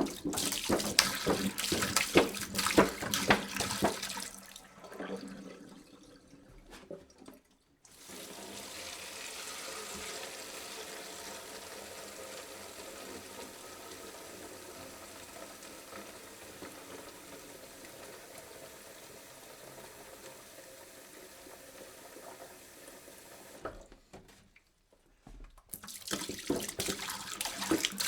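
Water poured into a jug: an uneven splashing pour that tapers off within the first few seconds, then a long steady stream running in, and near the end a fresh splashing pour begins.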